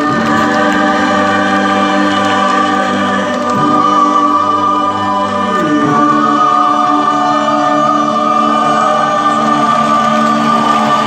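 Symphony orchestra playing long held chords with voices singing along; the chord changes about six seconds in.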